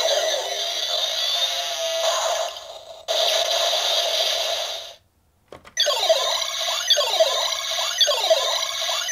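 DX Buggle Driver toy belt playing electronic finisher sound effects and music from its small speaker. First a dense run of tones with falling sweeps, then a steady held tone that cuts off about five seconds in. After a short silence a looping jingle of falling sweeps starts, about one a second.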